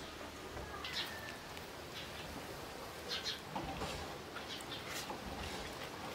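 Small birds chirping now and then, short high calls over a low steady background hum.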